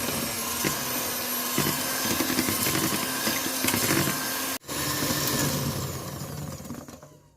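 Electric mixer running at speed, beating egg yolks and sweetened condensed milk into a cream. It cuts out for an instant a little over four seconds in, runs again, then dies away near the end.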